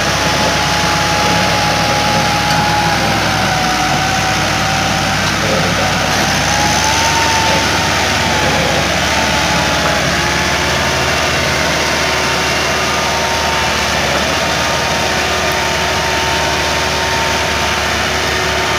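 Massey Ferguson 385 tractor's diesel engine running steadily under heavy load as it hauls a loaded trolley with its front wheels raised, a thin whine wavering slightly in pitch above the drone.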